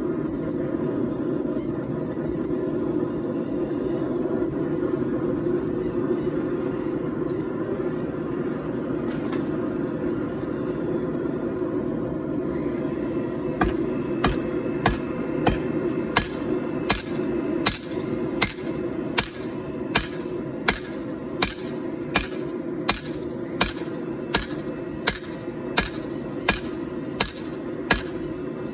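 Steady rushing noise of the forge running. About halfway through, a hammer starts striking the 4140 steel on the anvil in steady, evenly spaced blows, a little more than one a second.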